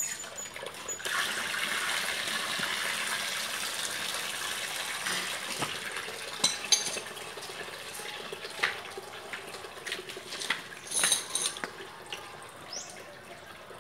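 Water rushing out of an opened water-supply pipe fitting, starting about a second in and slowly tapering off over several seconds. Sharp metallic clinks and knocks of a pipe wrench on the steel fittings follow.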